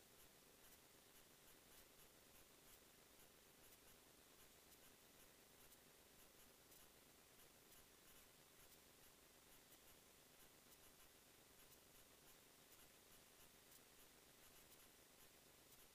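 Near silence: a faint steady hiss with faint, evenly spaced ticks.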